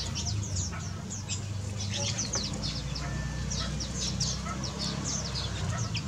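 Several small birds chirping: many short, high, falling chirps overlap at an irregular pace throughout, over a steady low hum.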